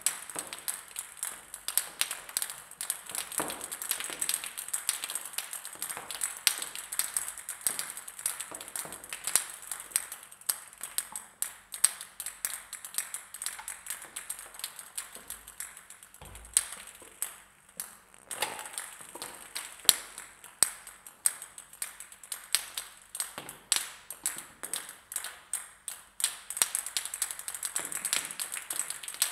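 Several table tennis balls bouncing on a hard surface: a dense, irregular patter of light, sharp clicks that thins out for a few seconds about halfway through.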